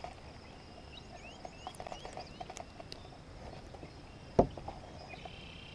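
Faint outdoor ambience of small birds chirping in short rising and falling calls over a steady high buzz, with one sharp knock about four seconds in.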